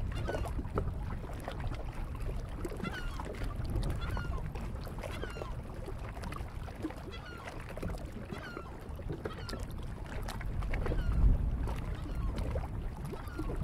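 Wind rumbling on the microphone, swelling in a gust near the end, with birds giving short calls over and over, about once a second.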